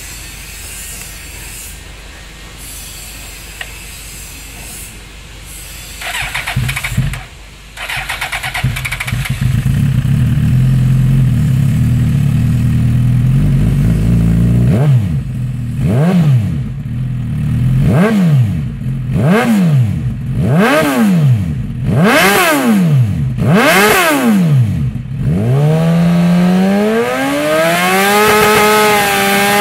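Suzuki GSX-R1000's inline-four engine through an aftermarket Hurricane exhaust tip: started about six seconds in, then idling. It is blipped up and down about seven times, then revved up and held near the end.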